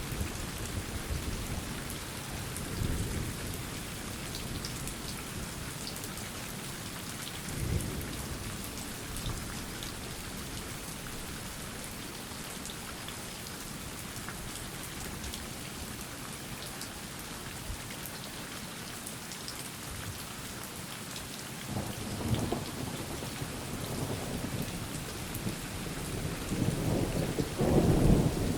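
Steady rain falling during a thunderstorm. There are a couple of brief low rolls of thunder in the first third, then a rumble of thunder builds from about two-thirds of the way through and grows loudest at the end.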